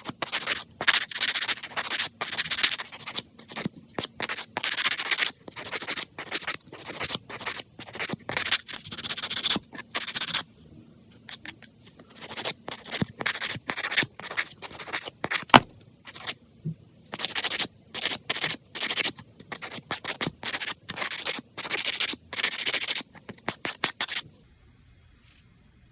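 A hand manicure tool scraping and rubbing on fingernails in quick repeated strokes, in runs with short pauses, stopping shortly before the end.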